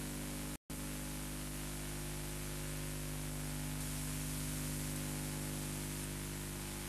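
Steady tape hiss with a low electrical hum from an old analogue video recording, cutting out completely for a moment about half a second in.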